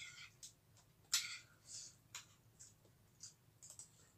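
Faint eating sounds: a metal spoon clinking and scraping against a ceramic bowl of rice, with chewing. They come as a handful of short sharp clicks and brief scrapes spread across a few seconds.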